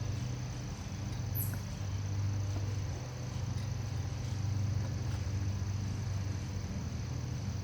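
Steady low hum with a continuous high, even trill of crickets over it, and one brief high click about a second and a half in.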